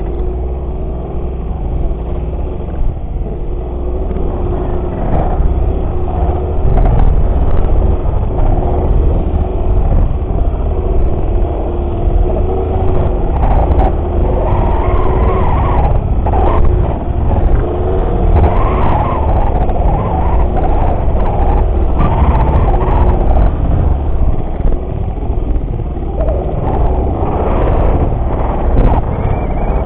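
Small motorcycle engine running under way, with a steady drone and a heavy rumble of wind on the microphone. The engine grows louder through the middle.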